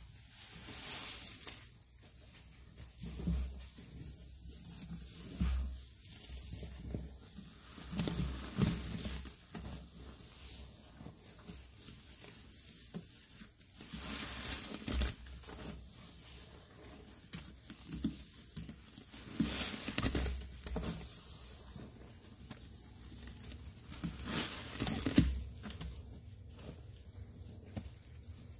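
Kitchen sponges loaded with Comet cleansing powder and Ariel detergent paste being squeezed and pressed by gloved hands in a sudsy sink: irregular wet squishes with crackling foam.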